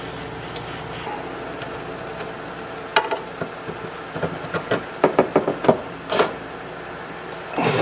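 Hot air gun's fan running steadily. From about three seconds in, a run of clicks and knocks as a 1515 aluminium extrusion is worked into a 3D-printed plastic corner piece by hand.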